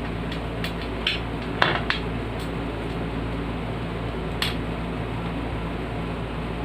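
Scattered light clicks and clinks of box fan parts being handled during repair and cleaning, over a steady low hum.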